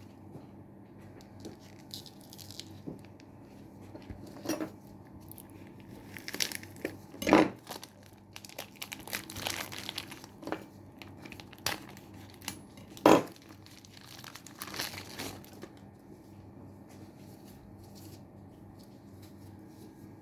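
Plastic food packaging crinkling and rustling as it is handled and torn open, with a few sharp knocks, two of them loud, in the middle of the stretch.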